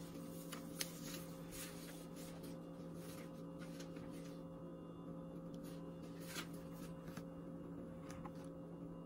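Small knife cutting rolled pie-crust dough into strips on a wooden cutting board: faint scrapes and light taps of the blade against the board, over a steady low hum.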